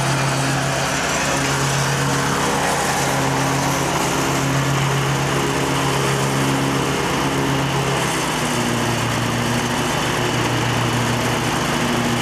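The 17-horsepower Kawasaki engine of a 2004 Exmark 48-inch Turf Tracer HP commercial mower running steadily; about two-thirds of the way through its note drops slightly.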